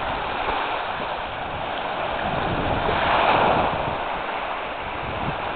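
Surf washing in along the shore, one wave swelling louder about three seconds in, with wind buffeting the microphone.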